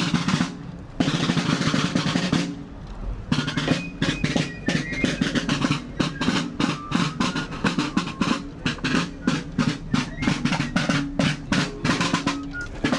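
Marching snare drums, with a bass drum, playing two rolls and then settling into a steady, quick marching cadence from about three seconds in.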